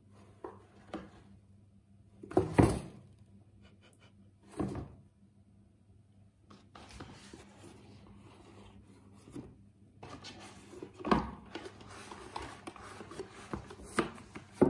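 Cardboard boxes rustling, scraping and knocking as a cat paws at them and shoves its head inside. Sharp knocks come about two and a half seconds in, near five seconds, around eleven seconds and near the end, with softer scraping between them.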